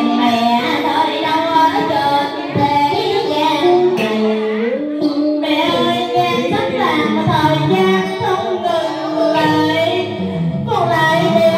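A woman singing a Vietnamese mourning song (hát tế) into a microphone, amplified through a PA speaker. Her voice slides between notes and holds long tones, over a steady low musical accompaniment.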